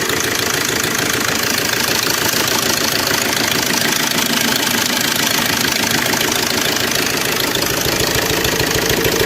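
Suzuki Swift Dzire DDiS diesel engine running steadily with a rapid tapping clatter. The mechanic traces it to a slack timing chain whose auto-tensioner has run out to its limit, with roller-rocker bearings breaking up.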